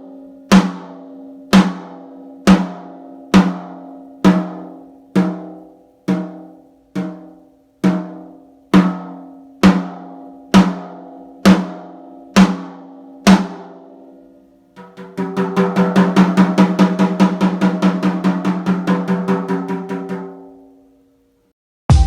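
A birch tom on a suspended STM mount from a PDP Concept Birch kit, struck about once a second, each hit ringing out with a clear pitch, for about fifteen strokes. It then goes into a fast single-drum roll of several seconds that dies away.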